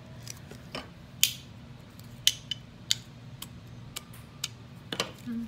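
Natural-stone jewelry being handled: a scattering of about seven sharp, irregular clicks and clacks as beads and pieces knock together.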